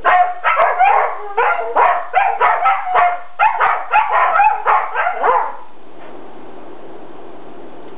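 Two dogs trading rapid short barks and yips in a play fight, about four a second, which stop abruptly about five and a half seconds in. After that there is only a steady low hum.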